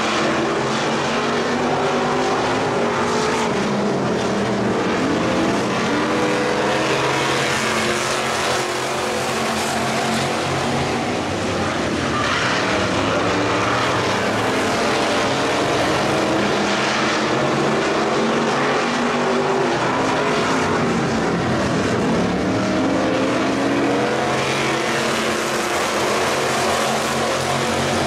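Factory stock dirt-track race cars running laps at speed, their engines rising and falling in pitch as they go into and out of the turns, several engine notes overlapping.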